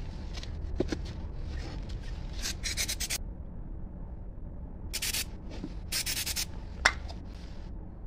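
Hand trigger spray bottle squirting water onto fresh cement: several short hissing sprays in bursts, with a sharp click near the end.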